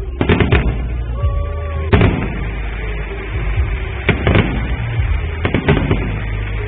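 Aerial firework shells bursting with sharp bangs, about seven of them and several in quick pairs, over music playing underneath.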